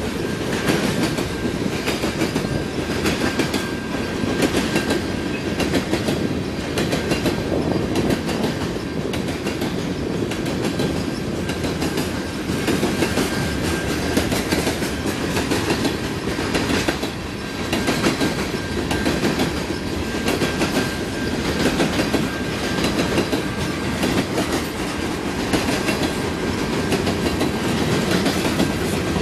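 Covered hopper cars of a CN freight train rolling past, a steady rumble with the clack of wheels over the rail joints.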